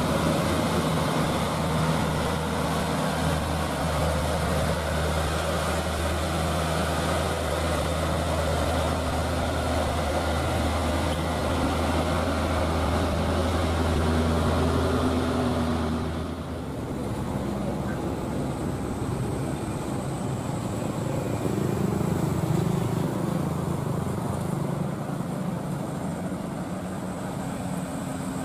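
Hino 300 (Dutro) light dump truck's diesel engine pulling steadily under a load of sand, a loud low drone. About 16 seconds in the sound changes abruptly to a quieter mix of another truck's engine and passing traffic.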